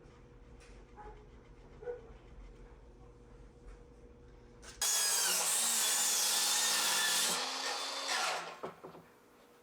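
A power saw cutting through a wooden board: it starts abruptly about five seconds in, runs loud with a whine for about two and a half seconds, then winds down and fades.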